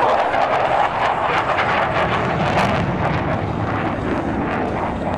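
Jet noise from a Thunderbirds F-16 Fighting Falcon passing close and pulling away in afterburner, loud and ragged with a crackle, easing slightly over the last couple of seconds.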